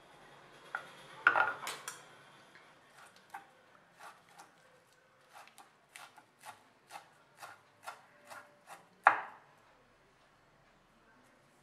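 A knife chopping curry leaves and coriander leaves on a wooden chopping board. A few loud knocks come about a second in, then a steady run of chops at two or three a second, ending with one loud knock near the end.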